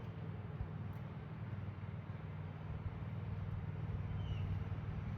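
Skid steer's engine running steadily with a low, even hum.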